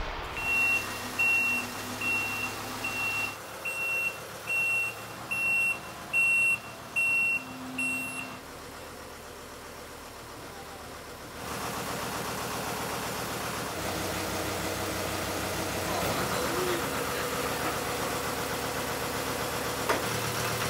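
An electronic vehicle warning beeper sounds ten short high beeps, about one every 0.8 s, then stops. After that an engine runs steadily.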